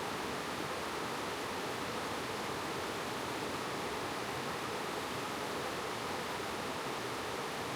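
Mountain valley stream rushing over rocks, a steady even wash of water noise.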